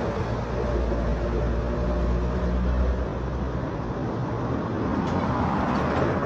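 A nearby motor vehicle engine running with a low, steady hum over a haze of road noise. The hum drops away about three seconds in.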